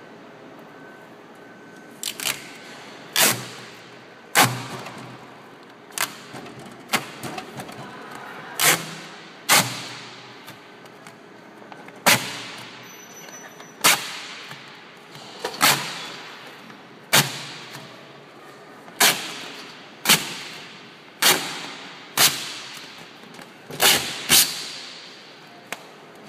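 Repeated sharp snaps and pops, about one every second or two, starting a couple of seconds in, as stiff, flexible plastic ATM branding panels are pulled off the machine and handled.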